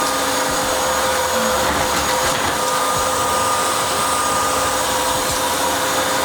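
Narwal S10 Pro wet-dry vacuum mop running its self-clean and drying cycle in its base: a steady motor and fan hum with a few constant tones.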